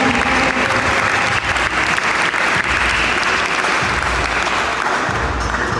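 Crowd applauding steadily, a dense clapping hiss with no break.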